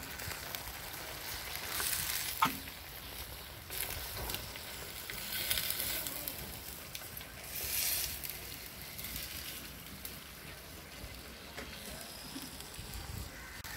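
Low sizzling of chicken and vegetables cooking in their own juices in a clay pot, with a single click about two and a half seconds in.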